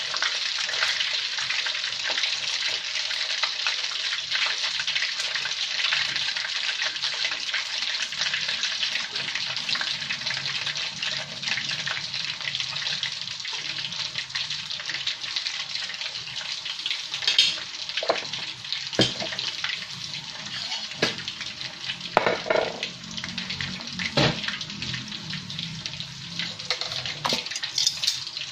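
Coated chicken pieces frying in hot oil, a steady hiss of sizzling, with a few sharp clinks of a utensil against the pan toward the second half.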